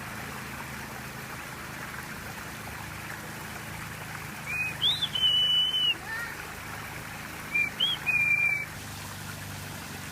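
Steady rush of running water, with a bird singing twice over it: each song is a couple of short rising notes followed by a held, clear high note.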